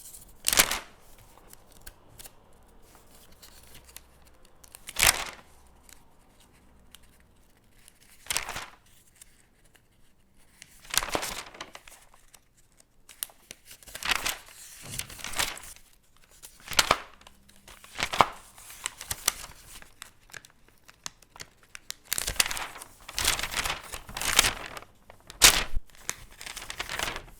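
Paper pages being turned one after another, each a short swish and flap of the sheet, a few seconds apart at first and coming more often in the second half.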